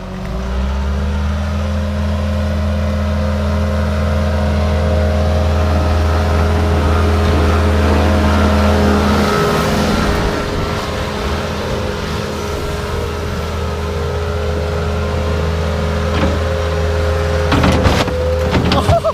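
Bobcat skid-steer loader's engine running steadily, its note changing about ten seconds in, with a few knocks near the end.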